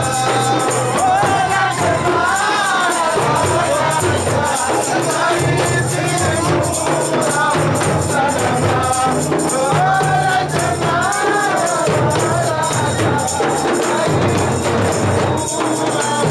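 A group of men singing together to hand-held frame drums beaten in a steady, jingling rhythm.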